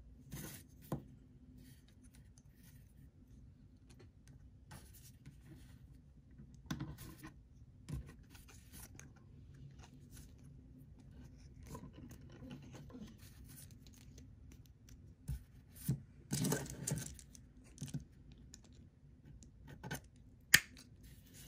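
Fine coated wire being bent and twisted by hand around a small metal tube on a wooden body: scattered scratches, rubs and small clicks. One sharp click near the end, as small locking pliers clamp the wire.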